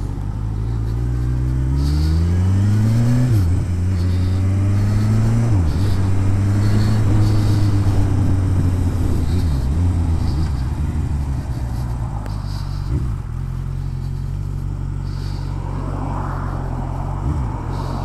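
Kawasaki Ninja motorcycle engine pulling away under throttle. Its pitch rises, drops at an upshift about three seconds in and again a couple of seconds later, then holds a steady, lower note for the rest of the time.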